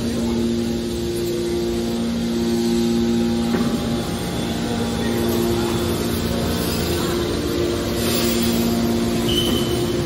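Factory machinery running: a steady mechanical rumble with a low hum of two tones that drop out briefly a few times.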